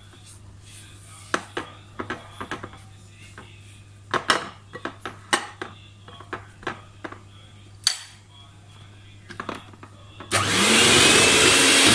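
Electric hand mixer switched on about ten seconds in, its motor spinning up and then running steadily as it beats butter and icing sugar for butter icing. Before it, scattered light scrapes and taps as the mixture is worked by hand in a glass bowl and butter is scraped off the beaters with a spatula.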